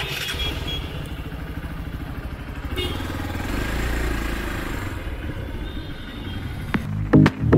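Hero Xpulse 200 4V's single-cylinder engine running as the motorcycle moves off from a standstill and picks up a little speed, the low rumble swelling about four seconds in. Loud music with a beat cuts in near the end.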